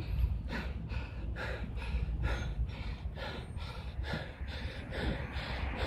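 Wind rumbling on the microphone while moving along an open road, with a regular swishing about two to three times a second.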